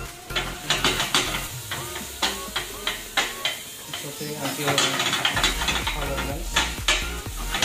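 Wooden spoon stirring and scraping in a stainless steel frying pan, with repeated irregular knocks against the pan, over the sizzle of leek, onion and celery sautéing in oil.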